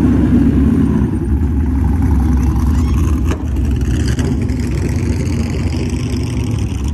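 Engines of vintage and classic cars rumbling as they drive slowly past, loudest at the start as a red sports-racing car goes by. A single sharp click about three seconds in.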